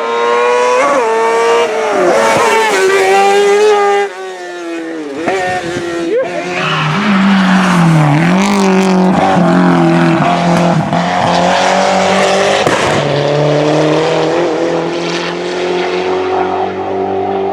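Hill-climb race car engines at high revs, the pitch climbing and dropping through gear changes. The sound falls away sharply about four seconds in, then a deeper engine note builds and holds.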